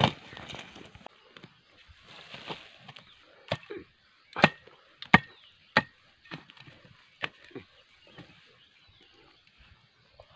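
Hand hoe striking hard earth and bamboo roots: about eight sharp chopping strikes at an uneven pace, a few with a short metallic ring from the blade, after some scraping of soil.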